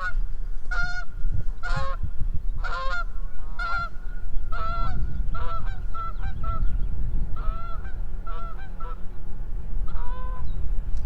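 A flock of geese in flight honking repeatedly, one or two honks a second, with a low rumble underneath.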